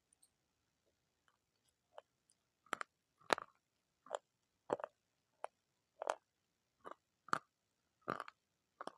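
A person chewing crunchy food close to the microphone: short, sharp crunches about every 0.7 seconds, faint at first and growing louder about three seconds in.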